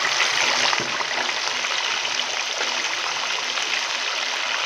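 Marinated fish pieces deep-frying in hot ghee in a large karahi: a steady, dense sizzle and crackle of bubbling fat, strongest in the first second just after a fresh piece goes in.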